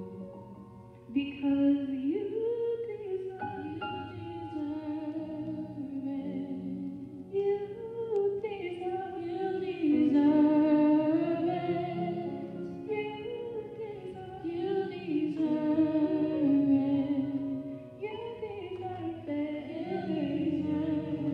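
Worship song sung by a small vocal team, two women and a young man, into handheld microphones, the sung lines rising and falling continuously.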